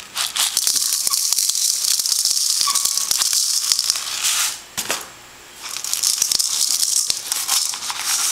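Coarse sea salt being shaken from a container onto a raw steak, a dense rattling hiss of grains, in two long bouts with a short pause about five seconds in.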